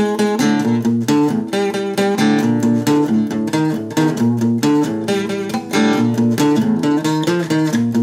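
Guitar-led music, plucked and strummed, over a steady beat.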